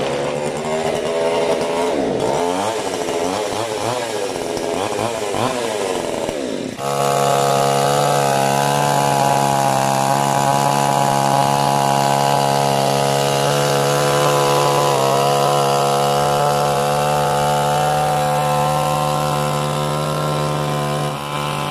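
Oxford 22-inch two-stroke petrol chainsaw: first revved up and down several times after starting, then, from about seven seconds in, held at steady high revs while cutting through a log, the revs falling away near the end.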